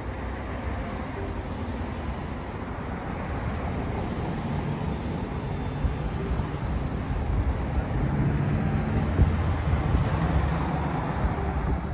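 Road noise of a car driving: a steady rumble of tyres and engine, a little louder in the last few seconds.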